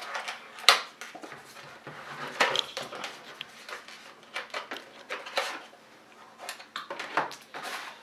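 Cardboard packaging and a small plastic case being handled: the inner sleeve sliding out of the box with scrapes and rustles, and irregular sharp clicks and taps, the loudest about a second in and again near the middle and near the end.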